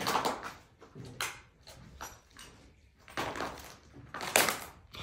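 Slow footsteps crunching and scraping over a debris-strewn floor, about one step a second, the loudest near the end.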